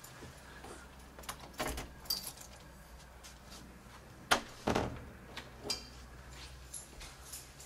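Keys jangling and small clicks at a front door, then a sharp click and a heavier thump about four and a half seconds in, as of the lock and the door.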